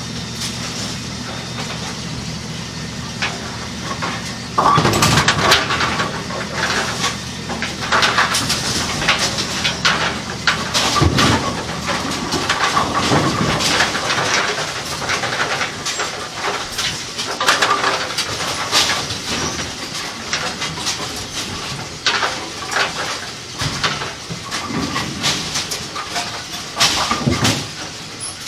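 Kegel Pin Shine bowling-pin cleaning machine with a steady low hum for the first four and a half seconds, then clattering, knocks and rustling as pins are worked in its tub of cleaning media.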